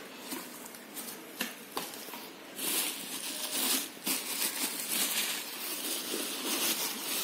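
Plastic bubble wrap crinkling and rustling as hands push and handle wrapped items, with scattered crackles; it gets louder a little under three seconds in.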